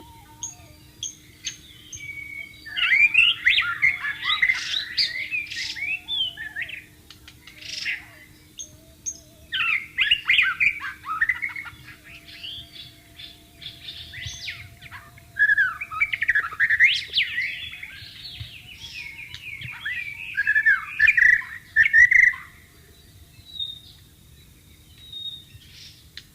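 White-rumped shama singing rich, rapidly varied whistled phrases in three long bouts with short pauses between them. Faint, steady, stepped low notes run underneath.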